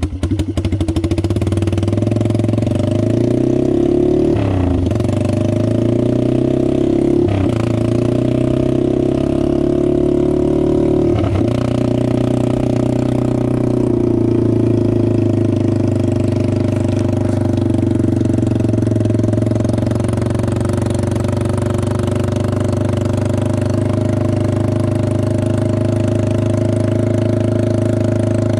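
Yamaha TimberWolf ATV's single-cylinder four-stroke engine running under way, loud through a rusting muffler. Its pitch dips briefly three times in the first twelve seconds as the rider shifts or eases the throttle, then it runs steady.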